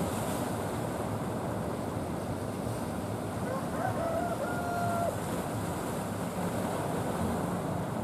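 Steady rush of sea and wind on the microphone, with the low drone of wooden fishing boats' engines under it. A rooster crows faintly about halfway through.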